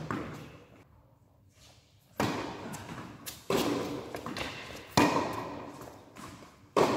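Tennis ball struck back and forth in a rally: sharp racket hits every second and a half or so, each ringing on in the echo of a large indoor hall.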